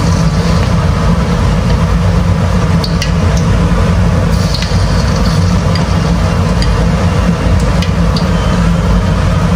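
Battered cempedak pieces frying in hot oil in a wok, a steady sizzle, with a few light spoon clinks, over a loud steady low rumble.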